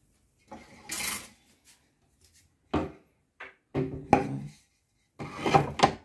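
Dishes and a wooden cutting board knocking and clattering as a dishwasher is unloaded and the board is put into a cabinet: a scrape about half a second in, then a run of sharp knocks and clinks from just under three seconds in.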